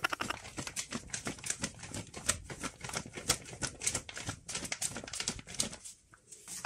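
Wooden rice paddle tapping and scraping against a plastic bowl while sushi rice is mixed with its seasoning: a quick, irregular run of small clicks that dies away about six seconds in.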